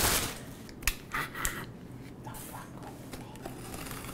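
Plastic bag crinkling briefly as it is pulled off, then a few sharp clicks and short scrapes of hands handling packaging.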